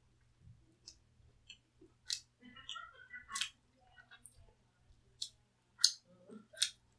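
Close-up chewing of thin-crust pizza: about six sharp, crisp crunches spread through, with soft wet mouth sounds between them.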